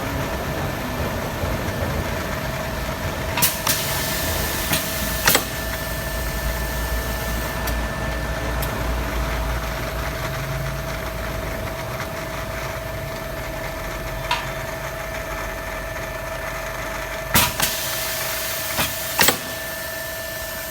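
Japanese automatic pipe-cutting machine running: a steady motor hum with a constant whine. Sharp clacks come in pairs, twice: a few seconds in and again near the end.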